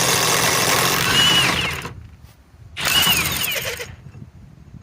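RIDGID high-torque cordless impact wrench, run off a stacked FLEX lithium battery, hammering in two bursts: a longer one of about two seconds, then a short one of about a second, each ending in a falling whine.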